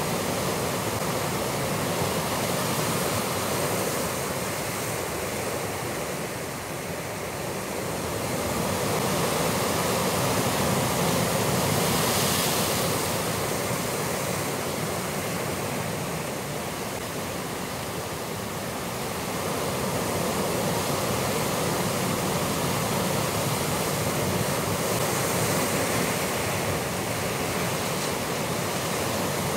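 Sea surf breaking against a rocky shore: a steady rush of water that swells and eases every several seconds.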